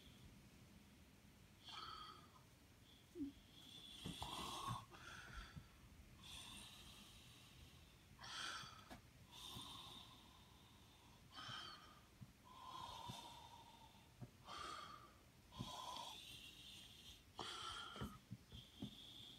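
Faint, close breathing through the nose, with a light wheezy whistle on each breath, a breath every second or two.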